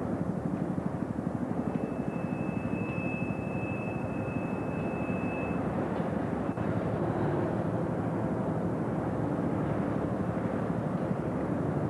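Heavy diesel engine of a derrick crane running steadily with a fast low throb. A thin high whistle sounds for about four seconds, starting about two seconds in.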